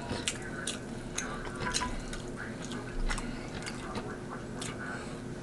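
Close-miked wet chewing and lip smacking on rotisserie chicken meat, with irregular sticky mouth clicks several times a second.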